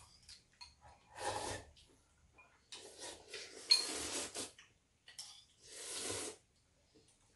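People slurping instant ramen noodles in several long draws, with light clicks of metal chopsticks against bowls in between.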